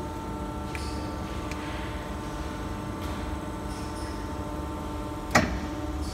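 Hydraulic test bench's power unit running with a steady hum. There is a sharp clack about five seconds in, as a control lever on the bench is worked.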